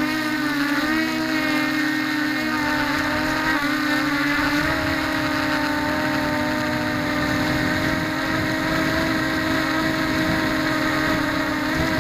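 Mini FPV quadcopter's four electric motors and propellers whining, the pitch wavering up and down in the first few seconds and then holding steadier. Wind buffets the microphone underneath as a rough rumble.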